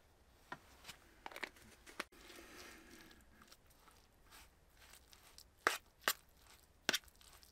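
Metal spoon stirring cottage cheese in a metal pan: scattered clicks and scrapes, a brief soft hiss in the first half, and three sharper knocks of spoon on pan near the end.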